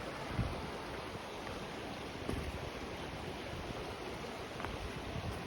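Steady rushing of flowing water from a woodland stream or falls, with low wind buffeting on the microphone now and then.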